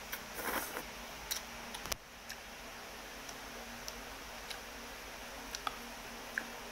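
Noodles slurped off a spoon about half a second in, then scattered light clicks of a metal spoon and fork against the bowl as she eats.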